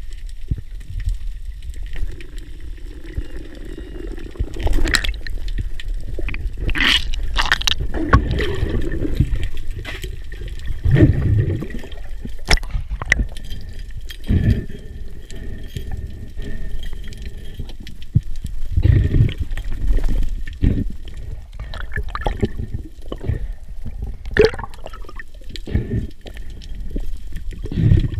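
Underwater sound picked up by a submerged camera: water rushing and bubbling unevenly, with scattered sharp clicks and knocks.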